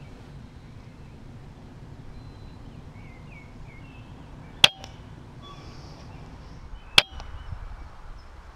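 Weihrauch HW100KT pre-charged pneumatic air rifle fired twice, two sharp shots about two and a half seconds apart, over faint birdsong.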